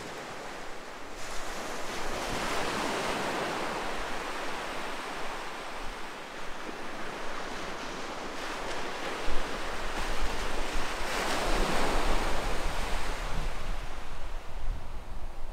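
Surf washing onto a beach, two waves swelling and breaking, with wind buffeting the microphone from about nine seconds in.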